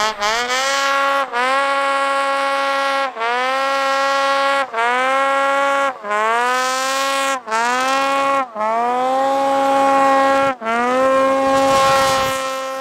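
Ski-Doo Summit 850X's 850 two-stroke twin engine at full throttle, in a run of short stretches that each rise quickly in pitch and then hold a steady high note as the variator keeps the engine at its shift revs, with brief sudden breaks between them.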